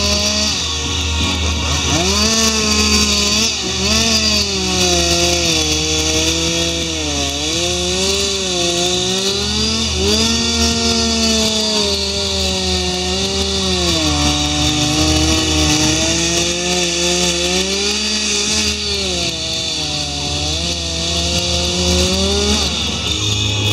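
Two-stroke chainsaw carving into a wooden log, its engine revving up and falling back every second or two as the chain bites and eases off, then stopping at the end.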